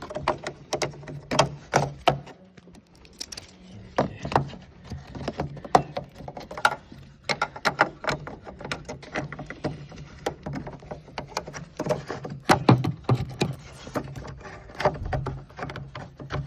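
Hands working at a car headlight's wiring connector in the engine bay: irregular plastic clicks, knocks and rattles as the plug is reached for and handled, over a steady low hum.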